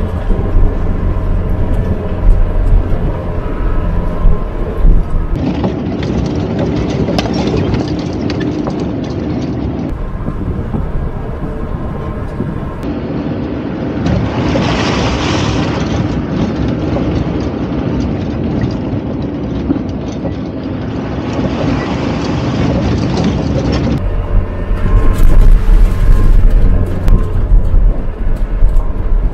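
Off-road 4x4 driving over a gravel mountain track: engine and tyre noise with wind rumbling on the microphone. The sound changes abruptly several times as the shots change.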